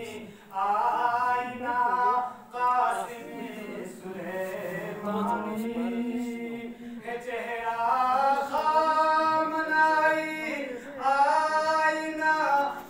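A man chanting a devotional recitation in long, held melodic lines, with short pauses for breath between phrases.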